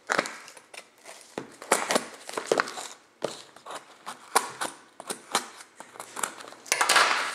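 A cardboard shipping box being cut and torn open with a knife: irregular sharp scrapes, snaps and rips of tape and cardboard, with a longer burst of crinkling packing material near the end.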